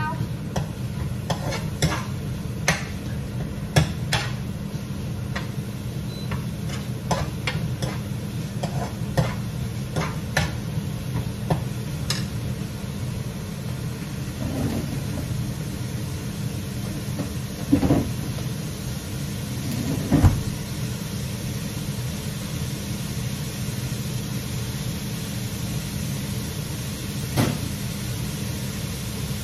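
Kitchen cooking at the stove: a steady low hum, with frequent sharp clinks and taps of utensils on cookware for the first dozen seconds, then a few louder knocks.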